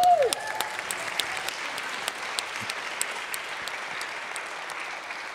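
Congregation applauding, a dense patter of many hands clapping that slowly dies down toward the end. A single voice calls out briefly at the very start.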